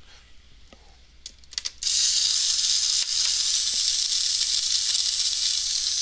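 Small cordless electric screwdriver unscrewing a screw from the plastic back of an all-in-one PC. The bit clicks into the screw head, then the motor runs steadily for about four seconds with a high hissing whir.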